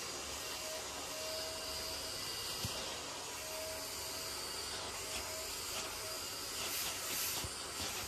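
Vacuum cleaner running steadily as its hose nozzle is drawn over fabric sofa upholstery, sucking up dust, with a faint whistle that comes and goes.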